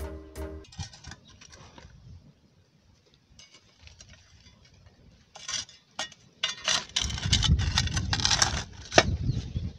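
Metal shovel scraping and tipping hot charcoal and ash onto the lid of a cast-iron pot, with clinks and gritty scrapes. It is faint at first, then from about five seconds in the scraping and clinking grow louder over a low rumble.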